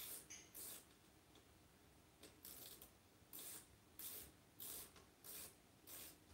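Topeak mini ratchet wrench worked in short strokes on the e-bike's bolts, each return stroke giving a brief, faint high clicking burr, repeating about every half second from about two seconds in.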